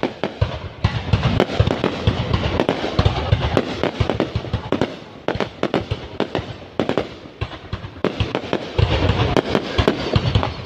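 Fireworks going off in rapid succession: a dense barrage of sharp cracks and low booms, easing a little midway and with heavier booms near the end.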